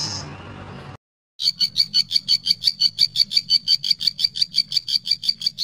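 After a brief silence, a rapid, high-pitched pulsing animal call starts about a second and a half in and repeats evenly at about six pulses a second.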